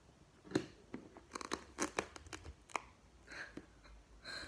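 Irregular short crackles and clicks of something being handled, crumpled or torn by hand, followed by a soft breathy whisper near the end.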